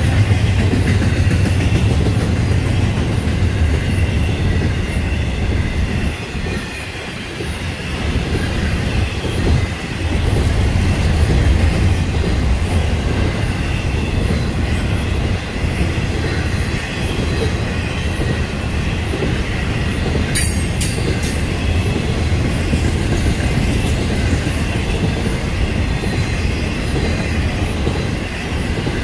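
Florida East Coast Railway freight train rolling steadily past, with a continuous low rumble of its cars and wheels on the rails and a faint high squeal from the wheels. There is one sharp click about twenty seconds in.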